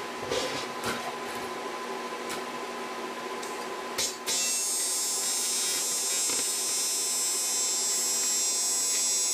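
TIG welding arc on the aluminium outboard midsection, striking about four seconds in and then buzzing steadily as the cut seam is welded. Before the arc, a steady hum with a few light clicks.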